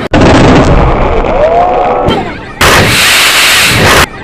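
Fireworks going off in a loud, dense barrage of bangs and crackle that overloads the microphone, cutting in and out abruptly a couple of times.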